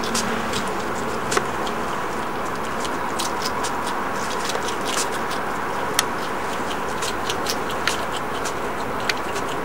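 European hedgehog chewing dried mealworms: an irregular run of small, sharp crunches and clicks over a steady hiss.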